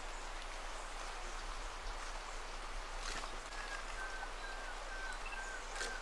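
Cloud-forest ambience with a steady hiss. In the second half a bird whistles a series of about six short, evenly spaced notes on nearly one pitch, each slightly lower than the last. There are a couple of faint clicks.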